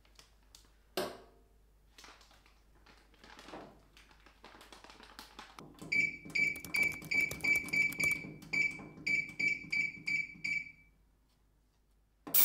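A rusty iron part dropped into a Vevor digital ultrasonic cleaner's tank with a single clunk about a second in. Then comes a quick run of about sixteen short, high beeps from the cleaner's keypad as its timer is set, and at the very end the cleaner starts with a loud hiss.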